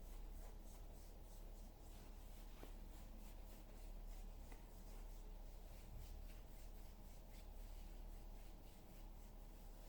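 Hands kneading and rubbing a person's back in a massage: faint, repeated soft rubbing strokes, a few per second.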